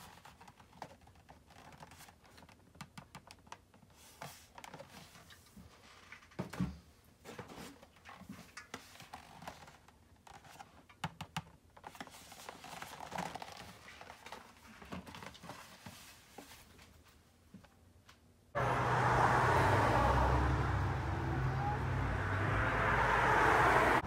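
Light taps and rustling from a hand handling cardboard cartons of small seltzer cans. About 18 seconds in, this cuts suddenly to a loud, steady outdoor rush with a low rumble.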